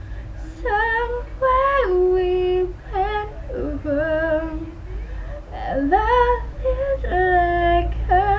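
A female voice singing wordless held notes that slide between pitches, with some vibrato, over a steady low hum.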